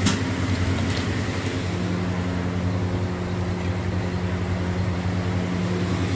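Steady low mechanical hum from a running motor, with a sharp knock at the very start and a faint click about a second in.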